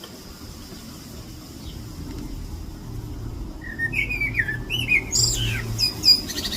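A bird chirping in a quick run of warbling calls that starts about three and a half seconds in, with shorter, higher chirps near the end. The uploader takes it to be possibly an Alpine chough. A low rumble runs underneath.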